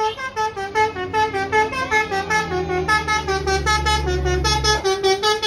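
Basuri telolet multi-tone bus horn playing a fast, jumpy melody of short notes, about six a second. The bus engine's low hum sounds underneath from about two seconds in and cuts off near the end.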